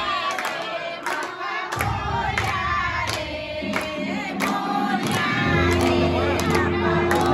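Many voices singing together, a devotional song at the puja, over a steady beat of about two strikes a second. A low held note comes in past the middle.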